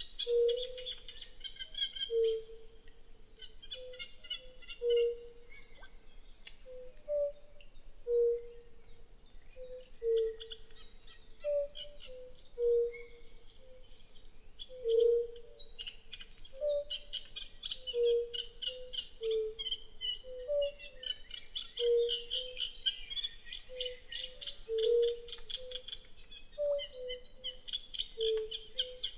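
Wild animal chorus: short, mellow low hoots repeating every second or two at a couple of slightly different pitches, under high chirping and trilling calls that grow denser in the second half.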